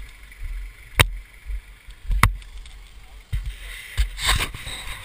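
Low, uneven rumble of a competition 4WD's engine idling, heard from on board. Two sharp knocks a little over a second apart, and a rustling hiss near the end.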